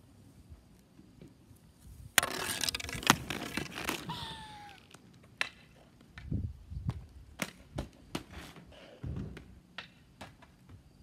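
Inline skate wheels rolling over a concrete driveway, a loud rushing noise from about two to four seconds in with a short falling squeak at its end. Then scattered clicks, knocks and a few low thumps.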